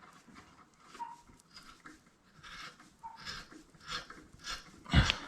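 A dog panting in quick, breathy breaths, with a single thump near the end.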